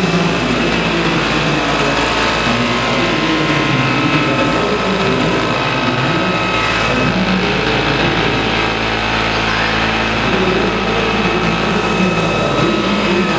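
Large radio-controlled scale model CH-47 Chinook tandem-rotor helicopter running on the ground, its two rotors spinning and its drive giving a steady high whine with a wavering low hum beneath.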